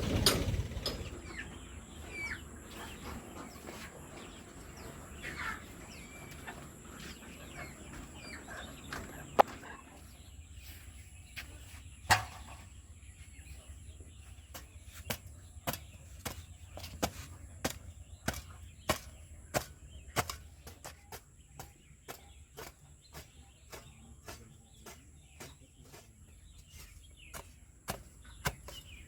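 Desi chickens clucking, with short calls mostly in the first third. A run of sharp knocks, about one or two a second, fills the rest, over a faint steady high tone.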